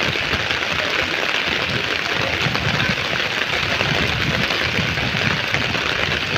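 Heavy rain falling steadily on a paved street, an even, unbroken hiss.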